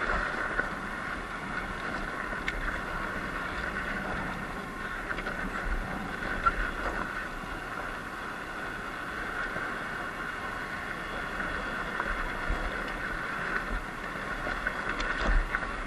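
Surron Light Bee X electric dirt bike riding over rough, rocky desert track: a steady whine from the electric motor and drivetrain over tyre and wind noise, with a few knocks from the bumps.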